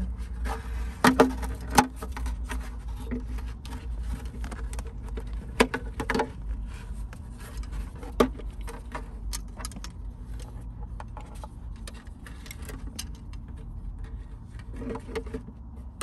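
Hard plastic seat-belt trim cover being handled and fitted, with the belt webbing slid through it: a handful of sharp plastic clicks and knocks, the loudest two in the first couple of seconds, with rubbing and scraping in between.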